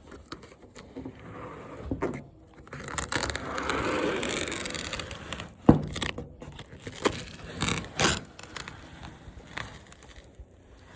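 A part of a flat-screen TV being pulled off by hand: a stretch of scraping and rustling around four seconds in, with scattered clicks and knocks, the sharpest about six seconds in and another near eight.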